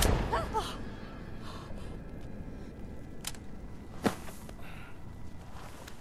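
A single loud gunshot right at the start, its echo dying away over about a second. Then a low steady outdoor background with two short clicks a few seconds in.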